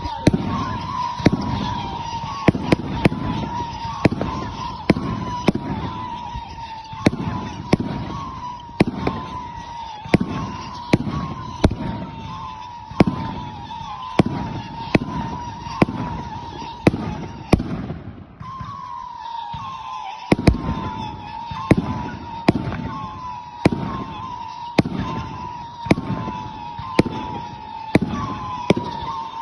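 New Year's Eve fireworks: sharp bangs going off about once a second, each with a rolling low echo, over a continuous wavering high tone that breaks off briefly about two-thirds of the way through.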